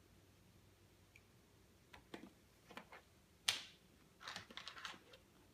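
Crinkling and rustling of a wrapper being peeled off a plastic surprise egg, in short irregular bursts from about two seconds in, with one sharper click a little past halfway.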